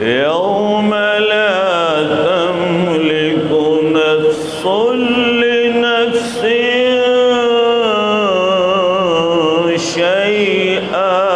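Male qari reciting the Quran in melodic tajweed style, drawing out long ornamented notes. The recitation opens with a rising glide and pauses briefly for breath about four, six and ten seconds in.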